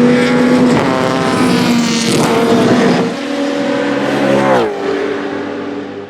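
The 1984 Ford Mustang GT Group A racing car's 5.0-litre carburetted V8 running hard with a steady engine note, then dropping in pitch about four and a half seconds in and fading away.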